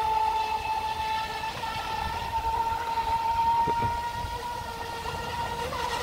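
Remote-control speed boat's motor whining at high speed as the boat runs across the pond, a steady high-pitched tone that wavers slightly in pitch, easing a little then growing louder again near the end as the boat comes closer.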